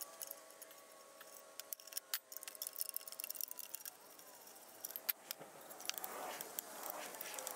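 Quick run of light metallic clicks and clinks from a wrench and loosened bolts as the sheet-metal shroud comes off a small Kohler engine, played back sped up.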